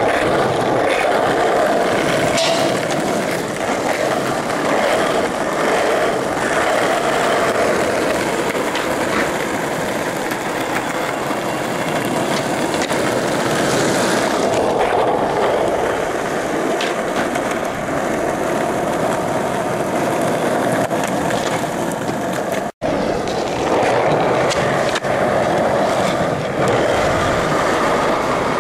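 Skateboard wheels rolling on asphalt: a steady, loud rumble, with a few sharp clacks of the board. The sound cuts out for an instant about 22 seconds in.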